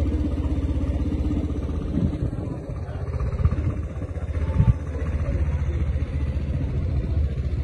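An engine idling steadily with a fast, even low pulsing, and a few short knocks near the middle.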